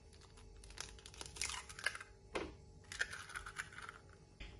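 An egg being cracked into a stainless steel mixer bowl of flour: light crackling of the eggshell as it is broken open, with a sharper tap about halfway through.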